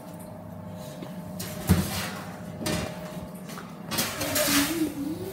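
Clatter from handling at an open oven: a sharp knock a little under two seconds in, then scraping and rustling, over a steady hum.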